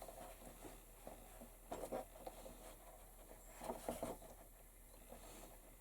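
Faint handling noises: a few soft taps and rustles of leather and small hardware being handled on a workbench, in an otherwise quiet small room.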